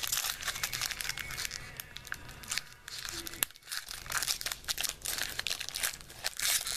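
Foil wrapper of a Bowman baseball card pack crinkling and tearing as it is handled and opened by hand: a dense crackle that eases off briefly about halfway through, then resumes.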